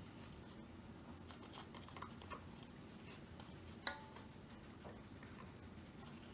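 A measuring teaspoon scraping and clicking faintly as it scoops baking soda from a cardboard box, with one sharper click and a brief ring about four seconds in.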